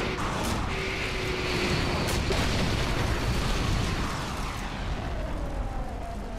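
Dramatised sound effect of a de Havilland Comet jet airliner exploding and breaking up in mid-air: a long, dense blast with a heavy low rumble and a few sharp cracks, dying away near the end.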